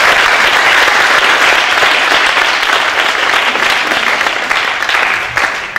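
Audience applauding: dense, steady clapping from a large crowd that begins to die away near the end.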